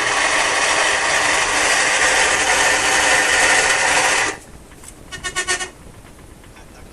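Electrolux LT15F washing machine grinding and squealing continuously during the spin cycle, a harsh rasping noise; it cuts off suddenly a little past four seconds in, followed by a brief run of about six quick squeaks. The grinding is a fault that runs through the whole spin and keeps the machine from reaching its former spin speed.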